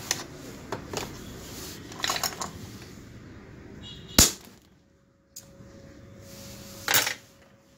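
Handling noise on a workbench: light knocks and clicks as cables and LED bulb parts are moved, with one sharp click about four seconds in. A faint steady tone sounds over the last couple of seconds.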